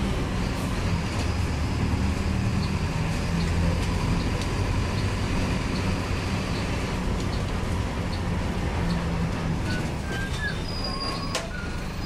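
Marcopolo Torino city bus heard from inside the cabin: the diesel engine runs with its pitch shifting as it drives, with scattered body rattles and clicks. Brief high squeaks sound near the end.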